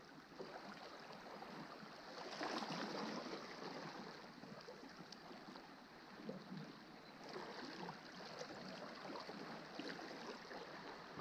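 Faint lapping and gurgling of calm sea water against shore rocks, swelling slightly a couple of seconds in.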